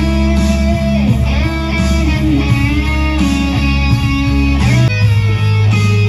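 Electric guitar played live through a stage sound system: a lead line of sustained notes with pitch bends over a steady, deep low backing.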